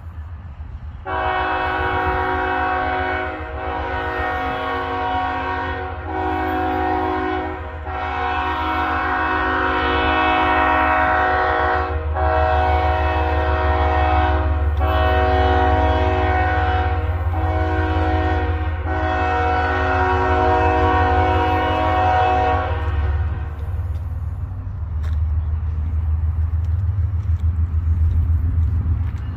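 Approaching passenger train's locomotive air horn sounding a multi-note chord in the grade-crossing pattern of long, long, short, long, played twice over about 22 seconds. A steady low rumble runs underneath and grows louder near the end as the train comes closer.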